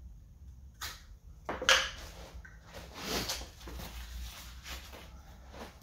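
Two sharp knocks about a second apart, then softer handling noise: a Showa motorcycle fork being driven against a homemade PVC-pipe seal driver used like a slide hammer, seating the metal bushing in the upper fork tube.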